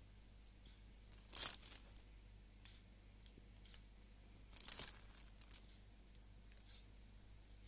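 Crumpled aluminium foil lining a fish shipping box crinkling in two short bursts a few seconds apart, with a few faint ticks, over a low steady hum.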